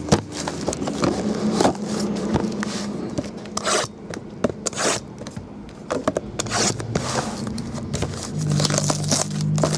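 Cardboard and plastic packaging of a trading-card box being handled and opened: a run of short, irregular scrapes, crinkles and clicks.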